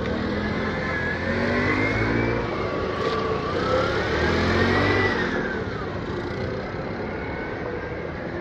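Engine of a yellow auto-rickshaw close by revving, its pitch rising and falling twice over the street's traffic noise.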